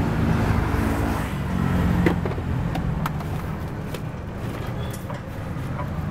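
A motor vehicle's engine running close by in street traffic, strongest for the first couple of seconds and then easing off, with a few light clicks and knocks over it.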